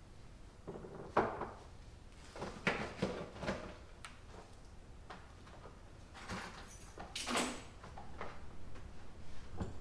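A handful of separate knocks and clunks with short rustling noises between them, with no engine running.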